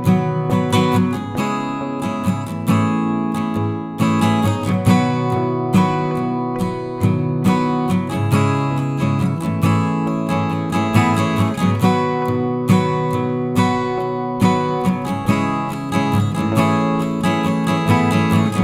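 Background music: acoustic guitar strumming and plucking chords with a steady beat.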